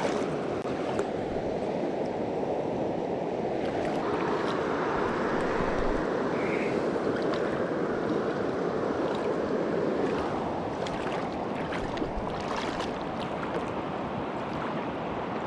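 River water rushing steadily over rapids, with a few brief sharp sounds after about ten seconds.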